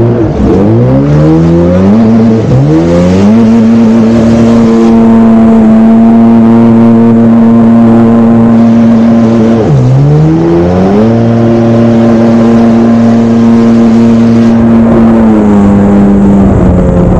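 Jet ski engine running at high revs under way. Its pitch climbs twice in the first few seconds and then holds steady. It dips about ten seconds in as the throttle eases and climbs back, then drops a little near the end.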